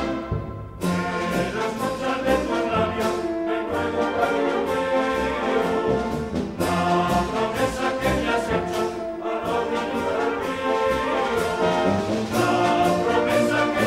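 Brass band music: trumpets and trombones playing a lively tune over a steady drum beat, with a short break just under a second in.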